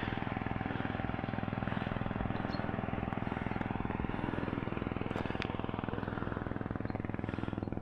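A car engine running steadily, with an even, rapid firing pulse.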